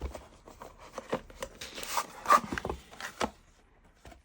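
A knife's box being handled and opened: a string of clicks, scrapes and rustles, loudest a little past the middle.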